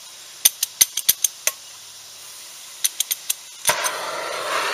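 MAP gas hand torch being lit: its igniter clicks in two quick runs, several clicks each, then the flame catches about three and a half seconds in and burns with a steady hiss.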